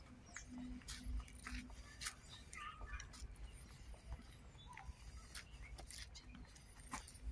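Faint crackling and ticking of footsteps on dry leaves and a dirt path, irregular rather than evenly paced, with a few thin bird chirps and a low rumble on the microphone.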